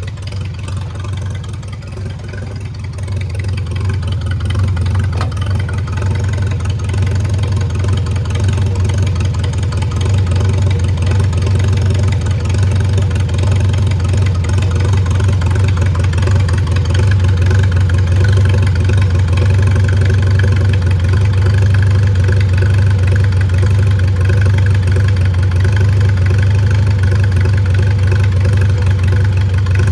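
Farmall A tractor's four-cylinder gasoline engine idling steadily with the fuel turned off, running on the gas left in the carburetor until it runs dry. It grows louder over the first several seconds, then holds steady.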